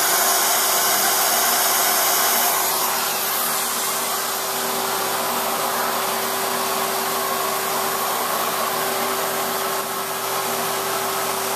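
CNC router spindle running steadily while its small end mill cuts a clear plastic block, with a vacuum running on the extraction hose at the cut. The steady rushing noise and hum ease off slightly about two and a half seconds in.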